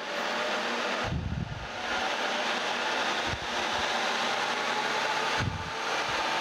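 Rivett metal lathe running fast, spinning a bare 8-inch Cushman four-jaw chuck body: a steady whirring hiss of motor, headstock and spinning chuck. It is spun to fling rinse water out of the chuck. Two brief low thumps come about a second in and again near the end.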